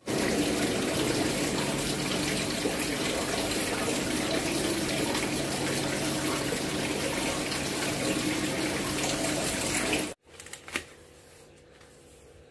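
A steady, loud rush of falling water. It cuts off abruptly about ten seconds in, leaving quiet room tone with a single click.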